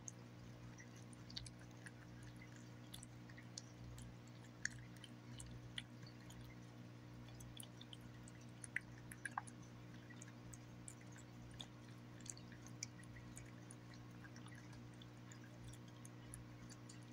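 Cat eating roast beef from a bowl: faint, irregular wet clicks and smacks of chewing and licking, over a steady low hum.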